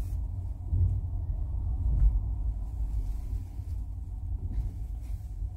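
Cabin noise inside a Mercedes-Benz EQS 450+ electric car while driving: a steady low rumble of road and wind noise, which the driver finds intrusive even with the climate control switched off.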